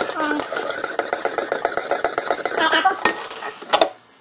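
Wire whisk beating egg, milk and oil in a mixing bowl: rapid, continuous clinking strokes of the wires against the bowl, stopping shortly before the end.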